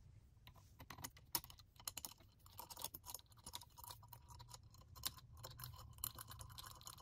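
Faint, irregular clicks and taps of metal parts being handled and fitted together: the two halves of a CNC controller's mounting arm slid into place.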